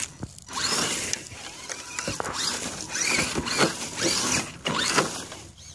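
Axial SCX10 RC crawler's electric motor and drivetrain gears whining in a series of short throttle bursts, the pitch rising within each burst as the truck crawls over dry grass and dirt.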